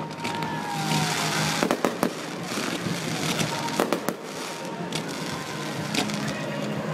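Fireworks going off: a steady hiss and crackle of sparks, broken by several sharp bangs of bursting shells.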